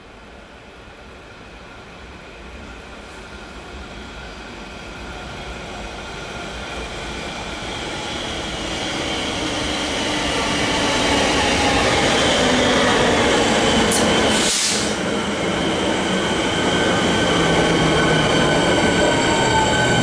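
Metro suburban electric train approaching and growing steadily louder for about twelve seconds, with whining tones and wheel-on-rail noise. A short hiss comes about fourteen seconds in, then the train runs loud with steady high-pitched whines.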